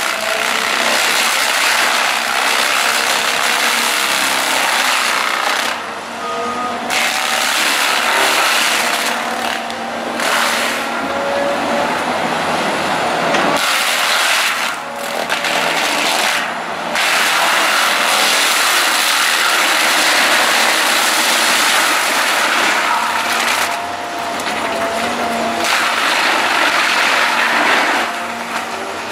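Heavy land-clearing machinery grinding and chipping through wood: a loud, dense roar with thin wavering squeals riding over it. It breaks off abruptly several times and starts again.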